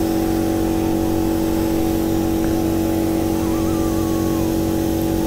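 Air compressor running with a steady hum, supplying a spray-paint gun that hisses as it lays black paint onto a motorcycle alloy wheel.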